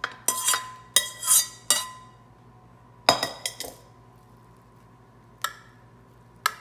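Metal spoon knocking and scraping against a stainless steel mixing bowl as cooked penne is emptied into a baking dish, the bowl ringing after the knocks. A louder clink comes about three seconds in, then a couple of light clinks as the spoon spreads the pasta in the pan.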